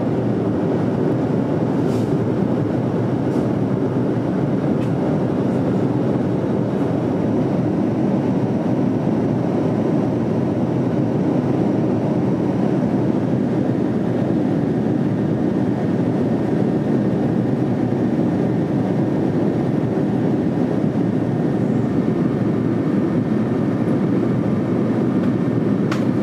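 Steady airflow and engine rumble heard inside a Boeing 787 at cruise altitude, an even, unbroken noise with no changes.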